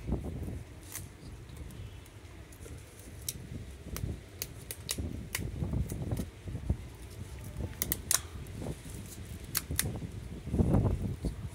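Scattered sharp clicks and crackles of sticky tape and cardboard being handled, over an irregular low rumble, with a louder low bump near the end.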